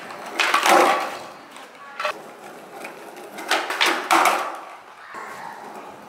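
Skateboard on a concrete floor: wheels rolling and the deck clacking as it is popped and lands in ollie attempts, with a sharp knock about two seconds in and a cluster of knocks around three and a half to four seconds.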